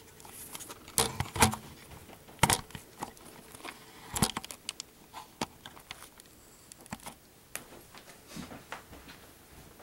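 Handling noise: a string of irregular clicks, knocks and clatters as objects are picked up and set down, loudest about a second in, again near two and a half seconds and just past four seconds.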